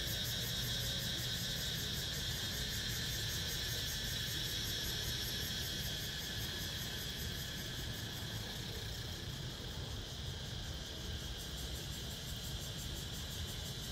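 A chorus of cicadas droning steadily in one high-pitched, fast-pulsing note. A low, steady rumble runs underneath.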